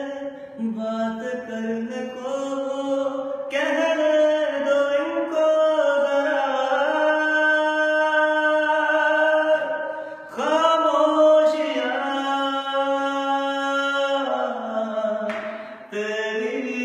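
A man singing a slow Hindi-Urdu film ballad unaccompanied, holding long drawn-out notes and sliding between them, with short breaks for breath about ten seconds in and near the end.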